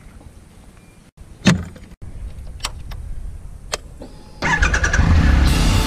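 Triumph Tiger XCA motorcycle's three-cylinder engine being started with the handlebar starter button. A few sharp clicks and a low hum come first, then about four and a half seconds in the engine cranks and starts loudly.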